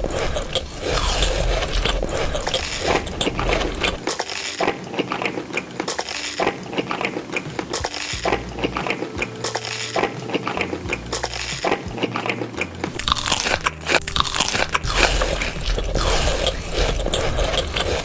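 Close-miked crunching and chewing of crunchy food, a dense, continuous run of crisp bites.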